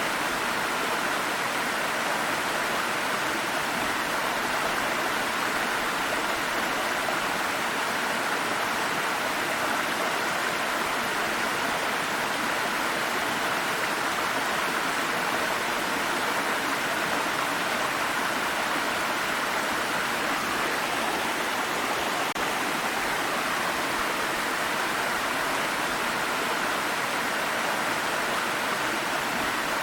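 Water stream running over rocks, a steady rushing and babbling.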